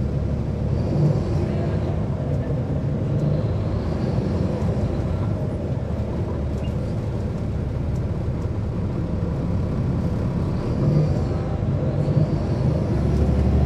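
Caterpillar C13 ACERT diesel engine of a 2009 NABI 40-SFW transit bus running, heard from inside the bus as a steady low drone, with the low end swelling briefly near the end.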